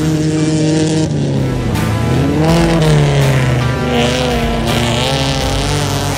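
Autocross race car's engine revving up and down hard as it slides through a dirt turn, with background music playing underneath.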